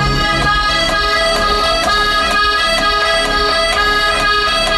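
Music played loud through a car audio system, with strong bass and long held notes.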